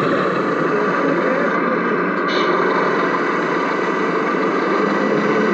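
Radio-controlled model truck running, heard from inside its cab: a steady, even engine-like noise with a brief higher sound about two seconds in.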